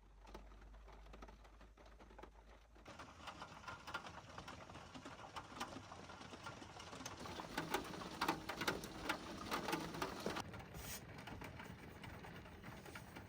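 Birds calling over a background of rustling and clicks; the sound changes abruptly about three seconds in and again near ten seconds.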